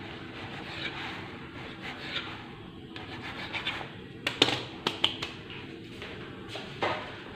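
A kitchen knife scraping and cutting through soft rolled dough on a floured counter, with a few sharp knocks of the knife on the counter about four to five seconds in and once more near the end.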